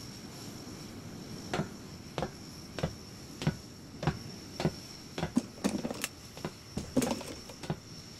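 A run of short, evenly spaced taps, about one and a half a second, starting about a second and a half in over a faint steady hiss; in the middle, more taps fall between the regular ones.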